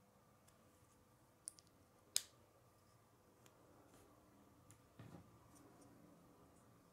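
Plastic Lego bricks clicking as they are pressed together by hand: two small clicks about a second and a half in, then a sharper snap just after two seconds, with soft handling rustle around five seconds.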